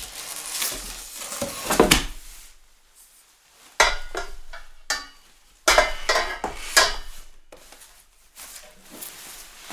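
Desk parts being unpacked and set down: rustling and scraping for the first two seconds, then a run of sharp knocks and clatters of metal and wood pieces about four to seven seconds in, with a few softer knocks near the end.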